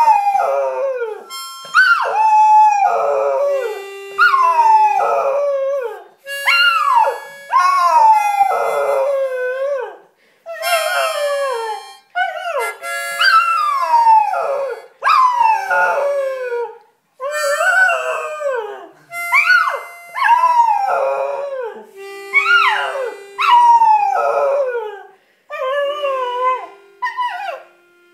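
A cocker spaniel howling along to a harmonica: a long run of howls, one every second or two, each sliding down in pitch, over held harmonica notes.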